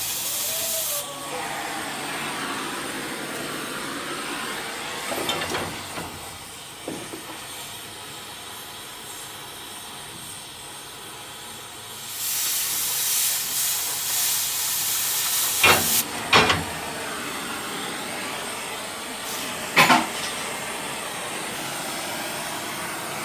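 Oxy-fuel cutting torch hissing steadily. A louder, higher hiss, the cutting oxygen jet, comes in for about a second at the start and again for about four seconds midway. A few sharp pops stand out, the loudest near the end of that burst and once more later.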